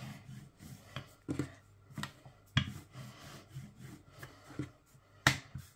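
Wooden rolling pin rolling out paratha dough on a countertop: a soft rubbing broken by several sharp wooden knocks, the loudest a little after five seconds in.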